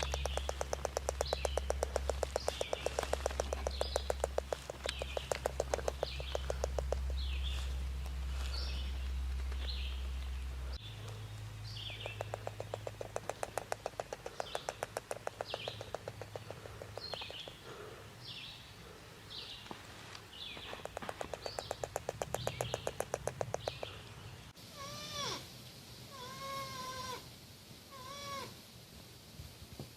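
Porcupine calls: a long run of short high squeaks over fast rattling clicks. About 24 seconds in this gives way to a few separate whining calls that rise and fall in pitch.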